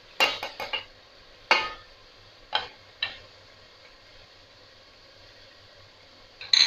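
Sharp clinks and knocks against an aluminium cooking pot as a plate of spices is tipped and tapped empty into it. There is a quick run of four near the start, single knocks at about one and a half, two and a half and three seconds, and a double knock near the end.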